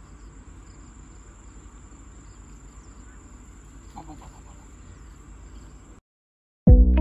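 Outdoor ambience with a steady high-pitched insect drone and a low rumble, and a short call about four seconds in. It cuts out about six seconds in, and loud electric guitar music starts just before the end.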